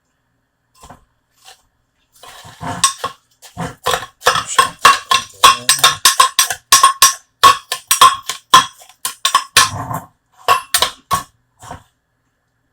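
A metal utensil striking metal cookware over and over, a rapid, uneven run of sharp clinks with a ringing note, about two or three a second, starting about two seconds in and stopping shortly before the end.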